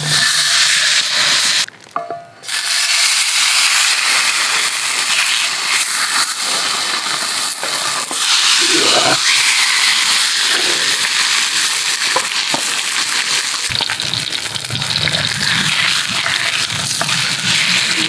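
Thick Miyazaki beef steaks sizzling hard in a hot iron skillet over a campfire, a dense steady hiss that drops out briefly about two seconds in.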